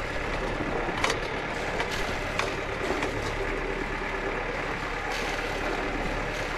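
Steady rush of water and wind as a sailboat moves through the sea, with a few sharp clicks about a second in and again a little later.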